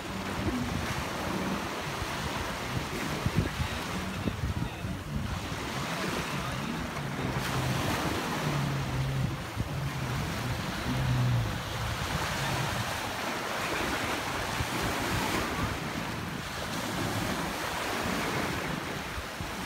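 Waves washing in the shallows and wind buffeting the microphone, with jet ski engines running out on the water. A low engine hum comes through more clearly around the middle as one jet ski comes close to shore.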